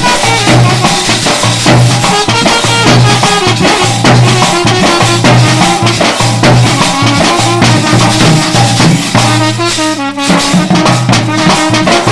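A South Indian band set playing a lively tune: held melody notes over a steady low note, with regular percussion strokes throughout.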